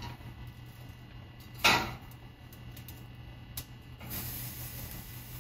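Boiled, seeded bagels being tossed onto baking stones in an open oven: one lands with a soft thud about a second and a half in, and a sharp tick follows a couple of seconds later, over a steady low hum.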